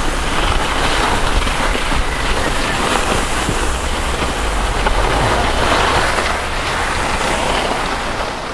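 Skis hissing and scraping over packed snow during a run down a gentle slope, with wind buffeting the microphone; it eases near the end as the skier slows.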